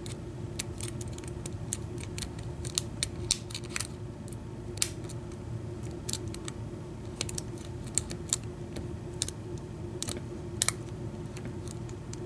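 Lock pick and tension wrench working the pin tumblers of a padlock's Yale-keyway cylinder: irregular light metallic clicks and ticks, over a low steady hum.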